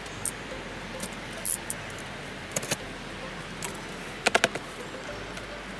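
Cardboard shipping box being handled: scattered light taps and clicks of fingers and tape on the cardboard, with a quick run of four sharp clicks a little over four seconds in.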